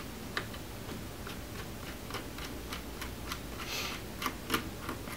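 Small Phillips screwdriver turning out a laptop hinge screw: a run of light, quick clicks, about three a second.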